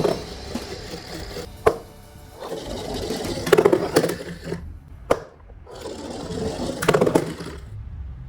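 Plastic toy cars rolling and rattling over a hard surface, in several bursts, with two sharp clacks about two seconds and five seconds in.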